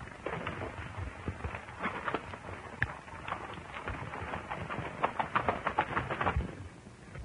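Horses' hooves clopping on dirt as riders set off, with a quick run of hoofbeats a little before the end.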